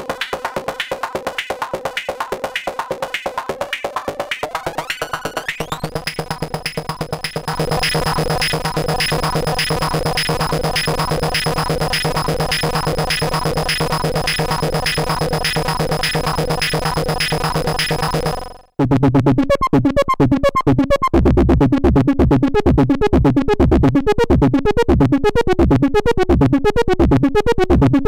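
Behringer System 100 modular analog synthesizer playing a fast, evenly pulsing buzzy patch. A high steady whine glides in about five seconds in, and the sound grows louder a couple of seconds later. About two-thirds through it cuts off abruptly, and a lower, rhythmically pulsing patch with shifting note pitches starts.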